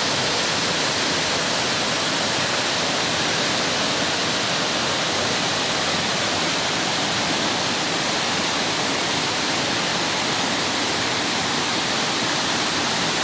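Fast-running water rushing steadily, an even hiss with no surges or breaks.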